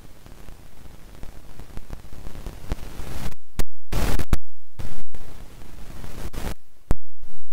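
Loud static-like hiss that swells, then from about three seconds in cuts in and out abruptly several times.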